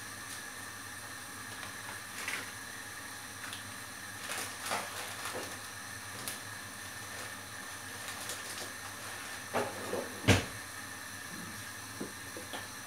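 Thick coconut-milk curry simmering in a wok over a steady hiss, with scattered soft pops and clicks. A single sharper knock comes about ten seconds in.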